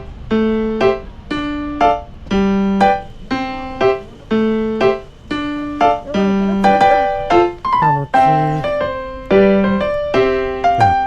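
Background music: a piano playing a slow melody, one note at a time, about one or two notes a second.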